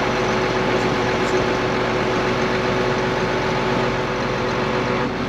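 Combine harvester (header) engine idling steadily, a constant hum with no change in speed.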